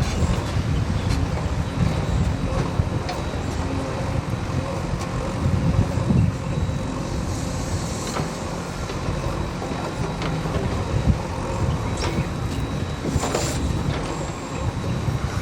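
Backhoe loader's diesel engine running in a steady low rumble, with scattered clanks and a brief high metallic squeal near the end.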